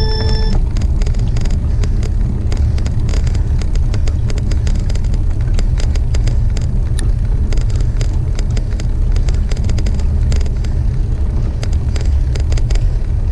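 Wind buffeting on a handlebar-mounted camera's microphone while riding a bicycle, a loud steady low rumble with frequent small clicks and rattles.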